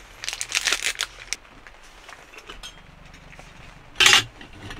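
A small plastic packet crinkling as it is torn open by hand during the first second or so. About four seconds in there is a short, loud rustling burst as its contents are tipped into a metal cup.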